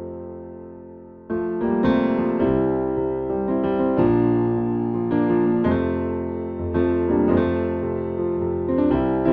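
Background piano music: a chord fades out, then a slow melody of struck notes and chords starts about a second in.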